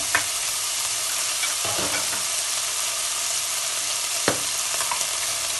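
Chicken pieces sizzling steadily in oil in a nonstick kadai, frying now that the water released by the meat has cooked off. Two sharp taps sound against the pan, one right at the start and one about four seconds in.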